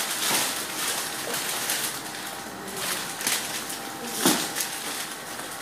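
Plastic packaging and tubing of a hemodialysis bloodline set rustling and crinkling as they are handled, in uneven bursts, with one louder sharp sound about four seconds in.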